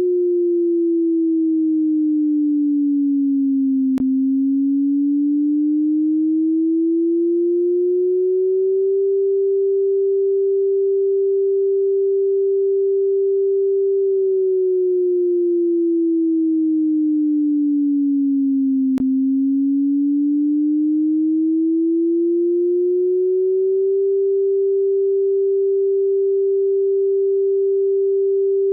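Simulated tsunami warning siren, a synthesized pure tone with no voice: it holds steady for about five seconds, slides down in pitch over about five seconds, then slides back up over about five seconds, twice in this stretch. The pattern is the warning signal for an approaching tsunami.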